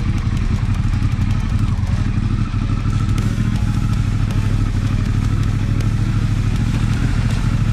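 Off-road motorcycle engine running steadily at low revs while the bike is held at a rocky ledge in a creek crossing.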